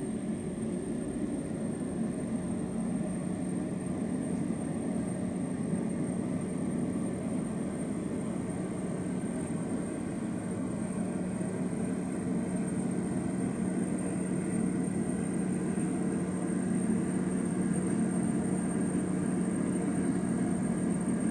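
Embraer E190 jet airliner's GE CF34 turbofan engines running at taxi power: a steady hum with a thin high whine, growing slightly louder toward the end.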